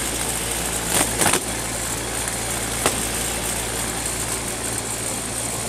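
Box-fan electric motor on its lowest speed spinning a sharpened sheet-metal blade under an aluminum mower deck: a steady hum with a rushing whoosh from the blade. A few sharp ticks, about a second in and again about three seconds in, as the blade shreds pieces of toilet paper.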